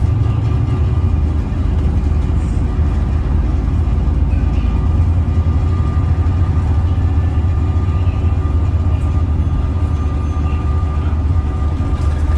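Bus engine running steadily as the bus travels, heard from inside the passenger saloon: a loud low drone with a thin, steady high tone above it and a few faint ticks.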